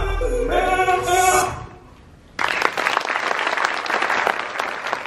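The dance track's last pitched notes ring out and stop, and after a short gap an audience breaks into applause about two and a half seconds in.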